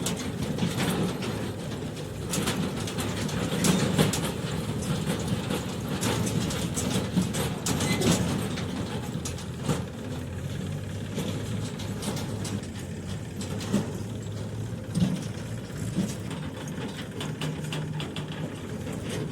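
Backhoe loader's diesel engine running steadily at work, with frequent irregular metallic clanks and knocks from the machine.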